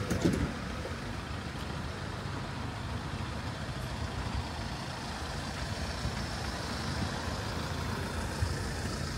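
Steady road-traffic noise on a town-centre street, with the low rumble of vehicle engines running, and a brief louder sound right at the start.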